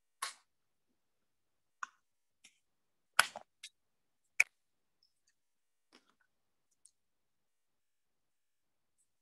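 A handful of sharp plastic clicks and taps at irregular intervals, the loudest about three and four and a half seconds in, from handling the wireless alarm key fob while preparing to format it.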